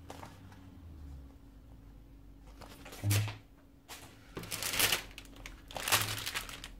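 A soft thump about three seconds in, then crinkling of a clear plastic bag holding a plastic miniatures sprue, in two short bouts, as the bagged magazine issue is handled and laid down.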